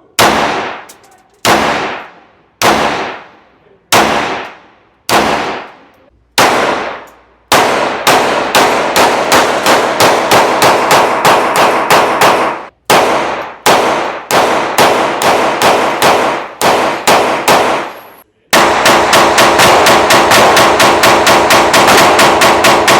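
Glock G44 .22 LR pistol firing: six single shots about a second apart, then rapid strings of shots with a short break, ending in a very fast string of about five shots a second. The pistol is cycling shot after shot with a replacement DPMS recoil spring, meant to cure the gun's frequent feeding and cycling failures.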